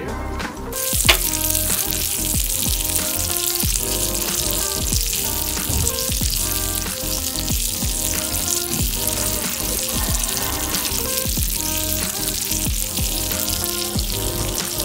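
Steak sizzling in butter on a very hot serving plate: a steady high hiss that starts under a second in, with a short sharp click just after. Background music plays underneath.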